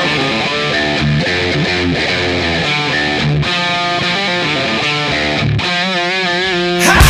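Rock music soundtrack with guitar. About six seconds in, a single note is held with a wavering pitch, and right at the end the full band comes in much louder.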